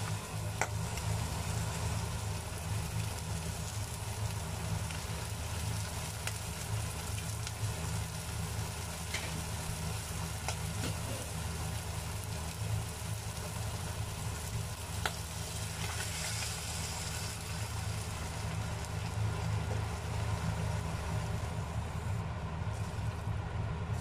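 Onion and bacon sizzling in a pot, with a wooden spatula now and then clicking and scraping against it, over a steady low hum. The sizzle grows louder about sixteen seconds in and fades near the end.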